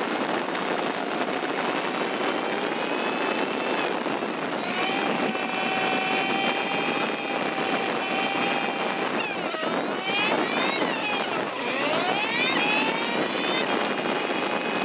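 Honda CB 125 F's single-cylinder four-stroke engine running under load on a climb, heard over a steady rush of wind noise. Between about nine and thirteen seconds in, the engine note drops and climbs again twice.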